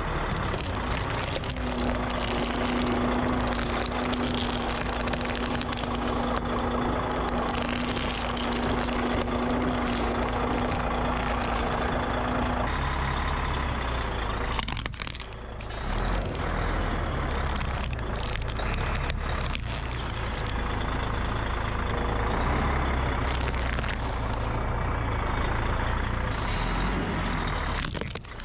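Car engine running as a tyre rolls onto plastic toys, with sharp cracks and crunches of plastic breaking, several in a row past the middle. A steady hum sits over the first part.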